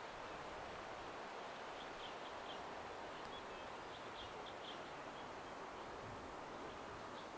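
Steady rushing background noise with a few short, high bird chirps, a cluster about two seconds in and another about four seconds in.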